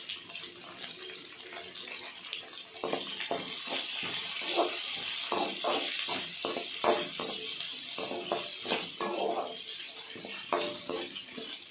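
Sliced onions, chillies and curry leaves sizzling in hot oil in a metal kadai, with a slotted metal ladle scraping and knocking against the pan as they are stirred from about three seconds in.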